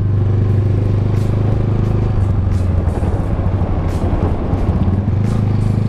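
Motorcycle engine running steadily at a constant cruising speed, with an even rush of wind and road noise.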